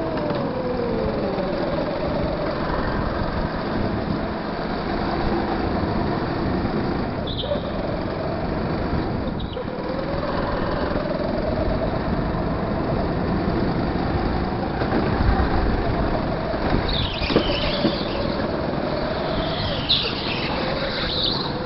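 Go-kart engine running under the driver, its pitch dropping into the corners and climbing again on acceleration, over and over. A few short tyre squeals come through, mostly in the second half.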